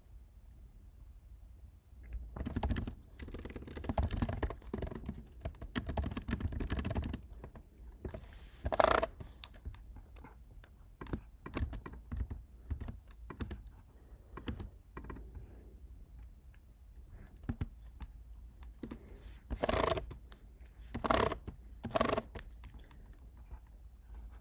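Typing on a computer keyboard while entering code: a fast run of keystrokes for several seconds, then scattered keystrokes with a few louder bursts of keys.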